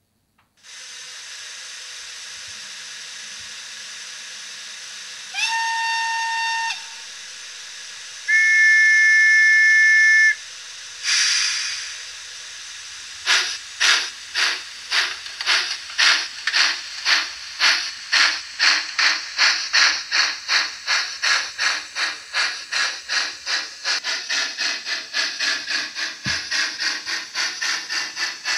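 Steam locomotive sounds from the sound system of an H0 model of the Portuguese CP 110/117 steam locomotive. A steady steam hiss comes first. A short whistle slides up and holds, then a longer, louder two-note whistle sounds and a burst of steam is let off. Then come steady chuffs, about two a second, quickening and running together as the locomotive pulls away.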